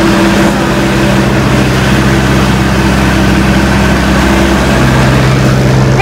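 Tandem (double-drum) road roller's diesel engine running steadily with a loud, even drone.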